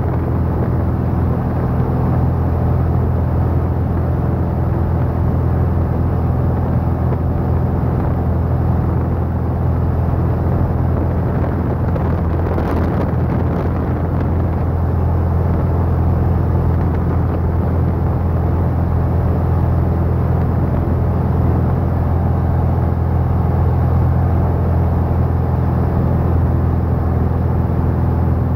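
Single-engine light airplane's piston engine and propeller droning steadily in flight, heard inside the cockpit.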